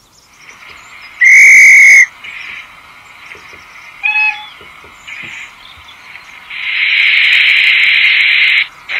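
Sound-fitted OO gauge model steam locomotive playing steam sounds through its small speaker: a loud whistle blast about a second in, a short whistle of several pitches near four seconds, and a long hiss of steam near the end.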